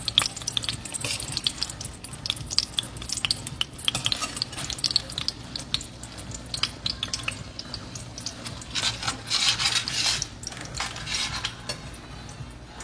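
A metal spoon stirring a thick, simmering jackfruit curry in a stainless steel frying pan: many quick clicks and scrapes of metal on the pan, with a longer hissing scrape about nine seconds in.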